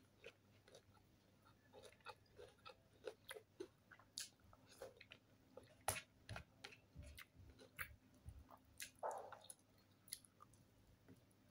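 A person chewing fried tilapia and rice close to the microphone: scattered soft mouth clicks and smacks, with fingers picking flesh from the fried fish.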